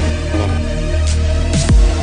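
Electronic dubstep-style trailer music with heavy bass, and a sharp downward pitch drop near the end.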